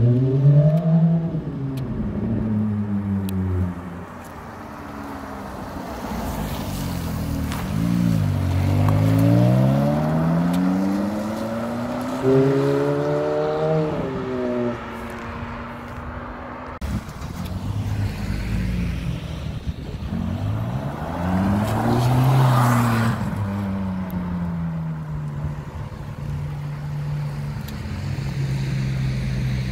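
Ferrari sports car engines accelerating and passing several times, their pitch climbing and dropping back again and again, with louder swells as cars go by and a steadier engine note near the end.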